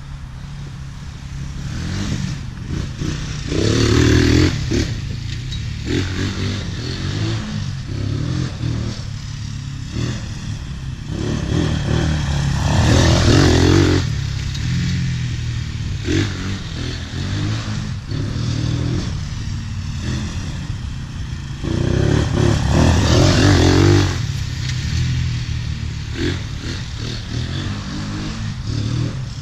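250cc Chinese quad (ATV) engine being ridden hard, running throughout and surging to full throttle three times, about four, thirteen and twenty-three seconds in.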